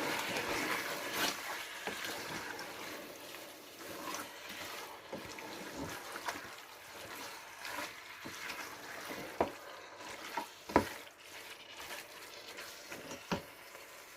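Chicken masala with coriander and mint cooking in a pot: a soft sizzle and bubble, strongest in the first few seconds, with a few sharp knocks in the second half.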